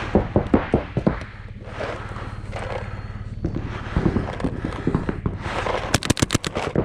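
Paintball markers firing during play: scattered knocks and shots, then a rapid string of about eight sharp cracks near the end.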